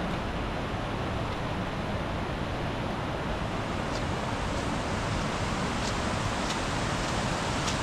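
A river in full spate, the River Okement, making a steady rush of fast-flowing water.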